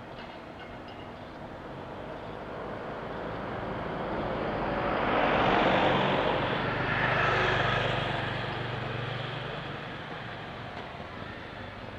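A vehicle passing by: the sound swells to its loudest about six seconds in, with a steady low hum under it, and fades away by about ten seconds.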